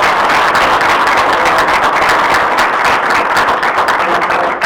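Audience applauding: many people clapping together, steady and loud.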